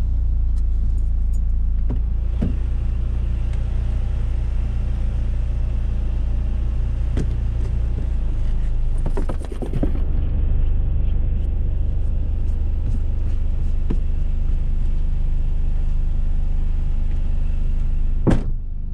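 Car engine and road rumble heard inside the cabin, a steady low hum whose note shifts about eight seconds in. A few light clicks and knocks sound over it, the sharpest just before the end.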